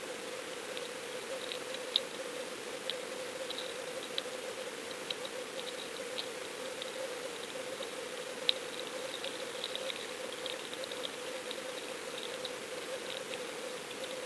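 Underwater ambience picked up through a submerged action camera's housing: a steady mid-pitched hum with many small, irregular clicks and crackles, two sharper clicks about two seconds in and a little past the middle.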